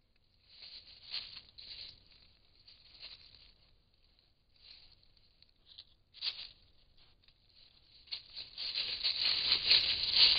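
White-tailed deer stepping and shuffling in dry fallen leaves close to a trail camera: scattered rustles and crunches, turning into steadier, louder crunching near the end as a deer walks right past.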